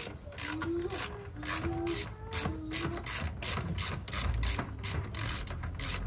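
Ratcheting screwdriver clicking steadily, about three clicks a second, as a screw is turned on a front-loading washing machine's tub.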